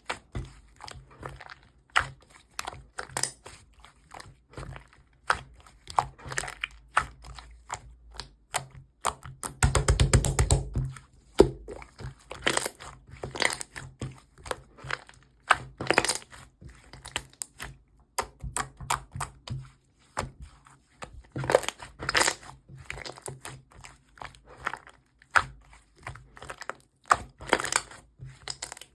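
Irregular crunching and clicking, many sharp cracks at uneven intervals, with a dense rapid rattle lasting about a second around ten seconds in.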